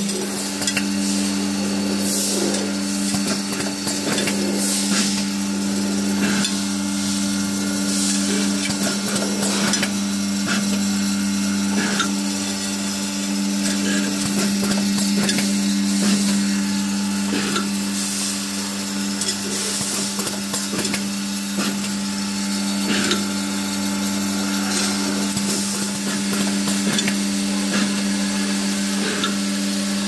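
Automatic glass syringe filling and plugging machine running: a steady hum with continual irregular clicking and rattling of its parts.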